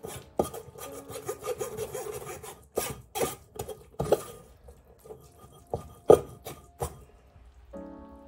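A spoon scraping and pressing cooked split peas through a stainless-steel mesh sieve: irregular rasping strokes with sharp knocks of metal on the sieve, the loudest knock about six seconds in. Background music underneath.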